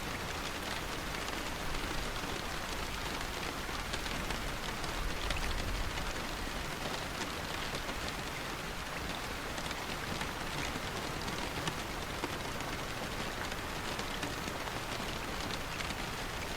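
Steady rain falling on a surface, an even hiss with scattered faint drop ticks.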